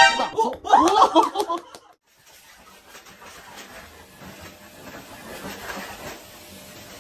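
A person laughing for about two seconds, then a faint steady hiss.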